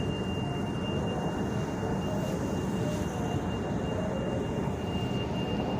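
Steady low rumble of an underground light-rail station or train, with a thin high-pitched whine held throughout.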